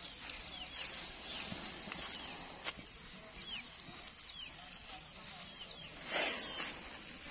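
Small birds chirping in short falling notes, over and over, with a brief louder rush of hissing noise about six seconds in.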